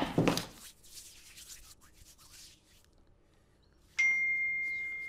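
A single bell-like chime struck about four seconds in: one clear high note that rings on and fades slowly.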